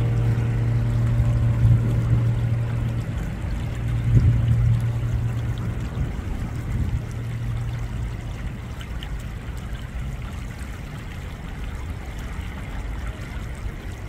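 Shallow stream water running and splashing as crucian carp thrash at the surface in the shallows. A low held music note fades out over the first half.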